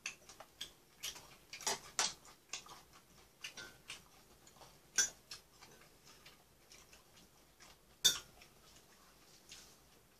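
Chopsticks and a spoon clicking and tapping against bowls and dishes while eating: irregular light taps, with a few sharper clinks about two, five and eight seconds in.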